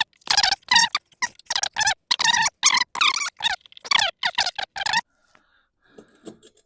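A high-pitched, squeaky voice-like chatter in short syllable-like bursts for about five seconds, then a few faint clinks near the end.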